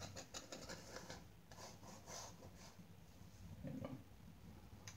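Faint scratching and dabbing of a palette knife laying paint onto a stretched canvas, in short strokes mostly over the first two seconds or so.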